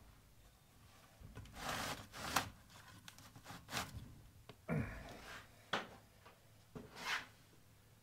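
Ford 555 backhoe's cast-iron diesel cylinder head scraping and knocking against wooden blocks as it is shifted and turned by hand. A rasping scrape comes about two seconds in, followed by several separate knocks, the heaviest a dull thump near the middle.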